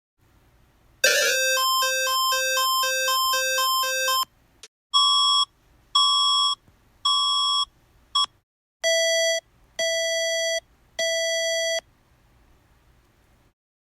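Electronic emergency-alert tones in three patterns. First a fast warble alternating between a low and a higher tone for about three seconds. Then four beeps about a second apart, the last cut short. Then three longer, lower beeps.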